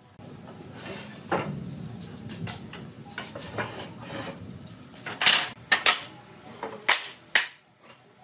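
Wooden boards and blocks knocking and clattering together as they are handled and stacked, with a run of sharp knocks in the second half.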